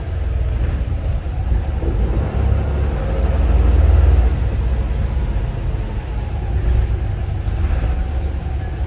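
Inside a Volvo B7RLE single-deck bus under way: the rear-mounted six-cylinder diesel engine and road noise make a steady low rumble, which grows louder for a moment about three to four seconds in.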